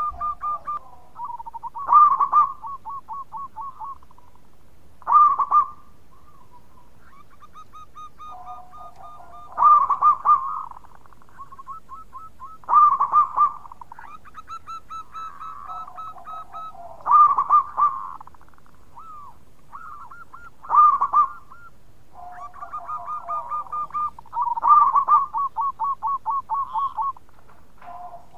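Zebra dove (perkutut) singing: a loud opening coo followed by a rapid run of short staccato coos, the phrase repeated about every three to four seconds. Fainter trilled phrases fill the gaps between them.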